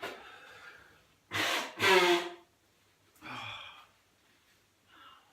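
Heavy, laboured breathing of a person with whooping cough: a string of loud breaths. The loudest is a harsh two-part gasp about one and a half to two seconds in that ends with a voiced sound.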